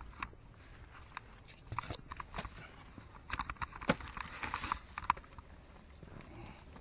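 Irregular scrapes and knocks of hands and shoes on rock, with dry grass rustling, as someone scrambles up a steep rocky slope.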